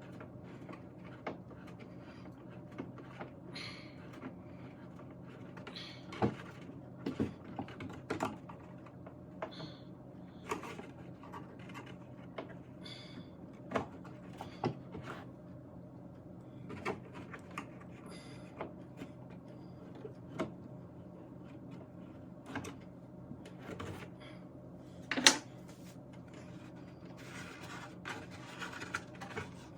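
Irregular small clicks, taps and knocks of hand tools and metal parts being handled while an old tube radio is taken apart, with one louder knock near the end, over a steady low hum.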